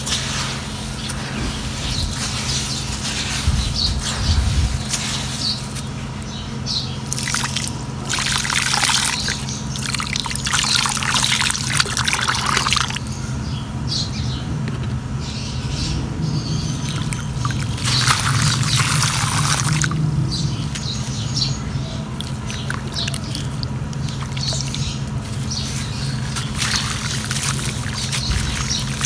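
Water poured into a hollow in dry gritty sand, splashing and trickling, in two long pours, one about eight seconds in and another around eighteen seconds in. Between them, hands scrape and squish wet grit, and a steady low hum runs underneath.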